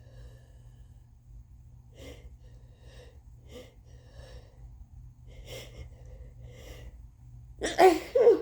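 A woman with a heavily congested head cold draws a run of short, halting breathy gasps as a sneeze builds, then sneezes loudly near the end.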